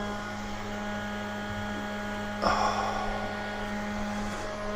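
Steady hum of running machinery, with a short burst of noise about halfway through.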